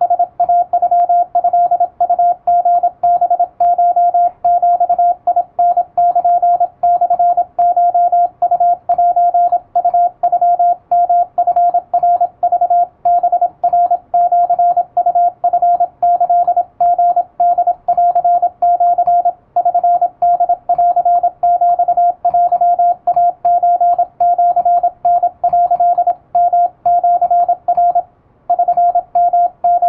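Morse code sidetone from an electronic keyer sending Japanese wabun code at high speed: a steady single-pitched beep keyed rapidly into dots and dashes, with short gaps between characters and a brief pause near the end.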